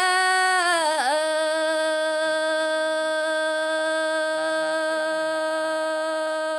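A solo voice singing a Red Dao folk song. It slides and dips about a second in, then holds one long, steady note.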